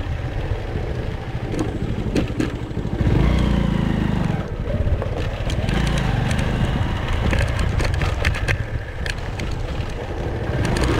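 Motorcycle engine running while riding over a rough dirt trail; its pitch rises and falls again around three to four seconds in, with scattered clicks and knocks throughout.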